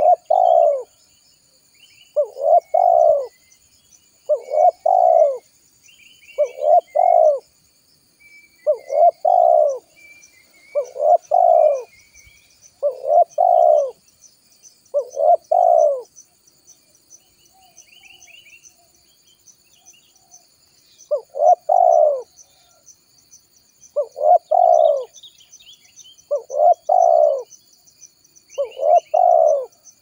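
Spotted dove (tekukur) cooing: a short phrase of a few notes repeated about every two seconds, with a pause of several seconds past the middle. Faint higher bird chirps and a steady high-pitched hiss run behind it.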